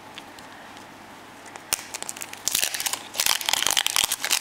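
Foil wrapper of a chocolate surprise egg crinkling as it is peeled off by hand. There is a single click in the first half, then dense crackling from about halfway through that grows louder.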